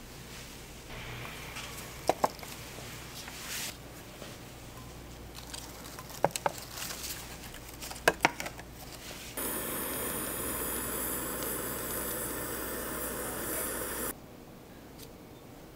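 Tableware clinking lightly: a few short ringing clicks in pairs, then a steady rushing hiss for about five seconds that cuts off suddenly.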